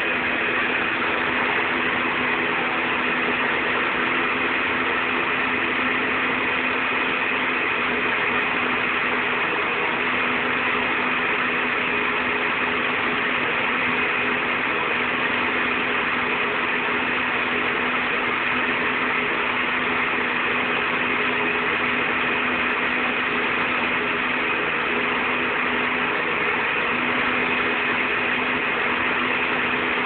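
Upright vacuum cleaner running steadily: a constant motor hum with a high whine over rushing air.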